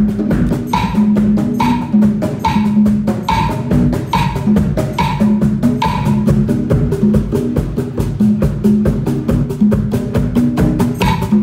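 Percussion-led dance-class music: a fast, even drum pulse under a low stepping bass line, with sharper clicking accents about once a second that drop out past the middle and return near the end.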